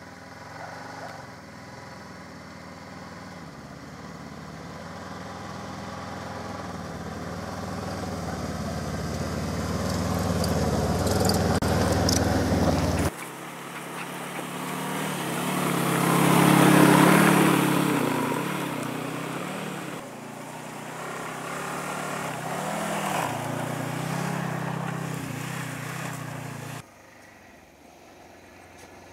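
Snowmobile engine running as the machine drives toward and past, growing louder and then fading. The sound cuts off abruptly about 13 s in and again near the end, where separate passes are spliced together, with the loudest pass around 17 s.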